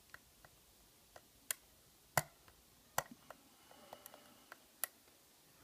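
Sharp, irregular metallic clicks of a lock pick working the pins inside a five-pin CISA padlock core during single-pin picking, as the pick reaches for the hard-to-reach last pin. There are about ten clicks, the loudest about two seconds in.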